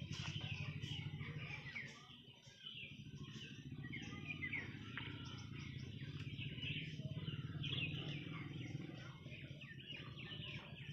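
Small birds chirping and twittering continuously, many short rapid calls, over a steady low hum.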